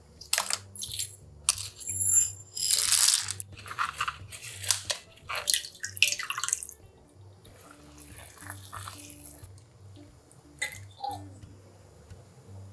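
Water poured from a jug into an enameled cast-iron pot over a cloth bag of vegetables, splashing in several spells over the first half or so. Soft background music plays throughout.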